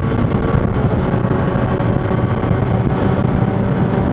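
Mazda Miata race car's four-cylinder engine running hard at a near-steady pitch, heard from inside the stripped, caged cabin over road and wind noise.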